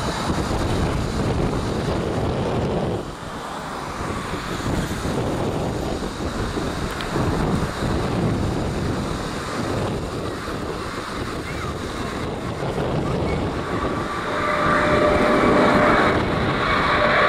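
Boeing 777 jet engines on final approach with the gear down, a broad rumble mixed with wind on the microphone. About 14 s in the sound gets louder and a steady fan whine joins the rumble as the jet draws near.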